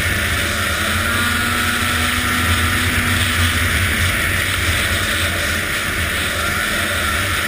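Arctic Cat ZR 800 snowmobile's two-stroke engine running steadily.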